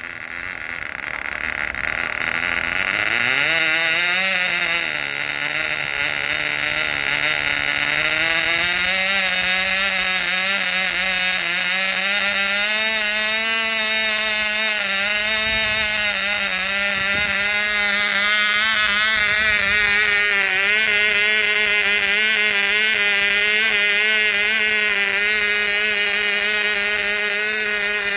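Cox Pee Wee .020 glow engine on a model airplane running on a ground test. Its high-pitched buzz rises and falls for the first several seconds, then settles into a steady whine.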